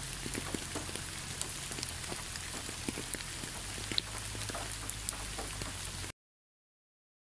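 Rain falling steadily, a hiss of rain with many scattered sharper drop taps. It cuts off suddenly about six seconds in, leaving dead silence.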